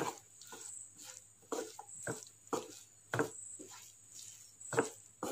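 A wooden spatula stirring thick, moist cooked jackfruit aviyal in a nonstick pan. It makes soft squishing and scraping strokes, about two a second.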